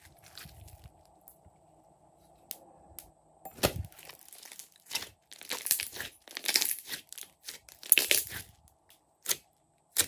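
Glossy slime squeezed, poked and stretched by hand, giving sticky crackling and popping. It is fairly quiet for the first few seconds, with a sharp pop about three and a half seconds in, then clustered crackles from about five to eight and a half seconds, loudest near eight seconds.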